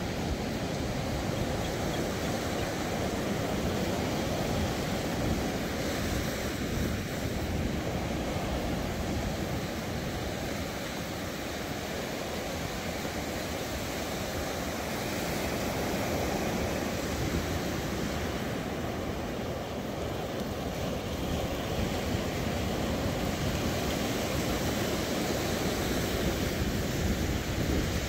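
Sea surf washing onto a sandy beach in a steady rush, with wind buffeting the microphone.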